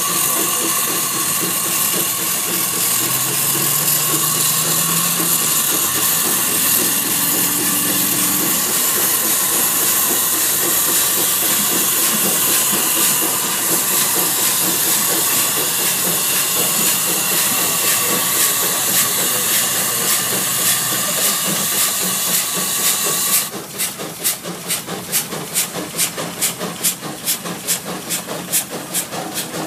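1901 steam traction engine pulling a sled: a loud, steady hiss of steam with a few steady tones in it. About 23 seconds in the hiss cuts off suddenly, leaving the engine's exhaust chuffing evenly at about three beats a second.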